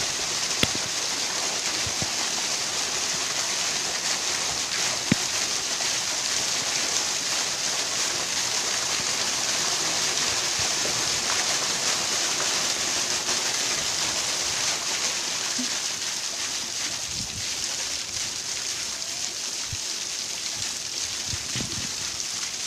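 Small waterfall running steadily: a continuous rush of splashing water, with two short sharp clicks, one about half a second in and one about five seconds in.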